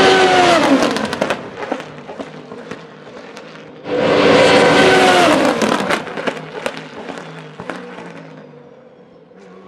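A Formula Renault 3.5 car's 3.4-litre naturally aspirated V8 passes at high revs twice, each time with the engine note dropping in pitch as it goes by, then fading with sharp pops and crackles.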